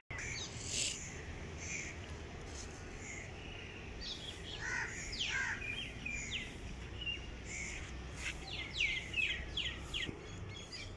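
Birds calling and chirping, with a few calls around the middle and a quick run of short falling chirps about eight seconds in, over a low steady rumble.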